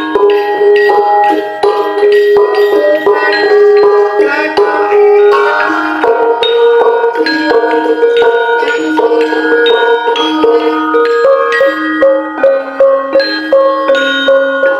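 Javanese gamelan being played: mallets strike the keyed bars in a quick run of ringing notes, several pitches sounding and overlapping at once.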